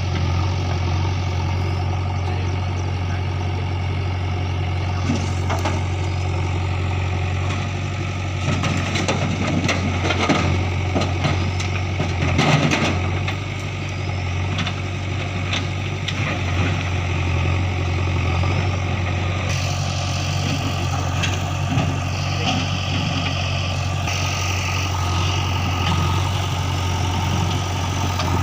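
Heavy diesel engine of farm earth-moving machinery running steadily at idle. A stretch of clatter and knocks comes about a third of the way in, loudest near the middle.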